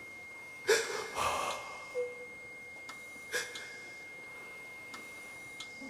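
A person's sharp gasping breaths, a few short ones, the strongest about a second in and again near three and a half seconds, over a faint steady high-pitched tone.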